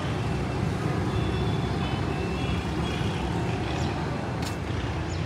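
Steady low rumble of background vehicle noise, with a few faint short high tones in the middle and two sharp clicks near the end.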